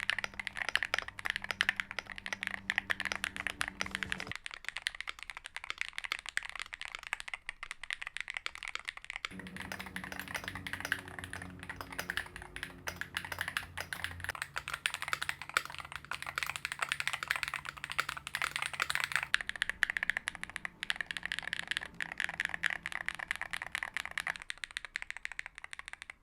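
Fast typing on a Chilkey Slice68 Hall-effect keyboard with magnetic Flux switches: a steady stream of clacky keystrokes.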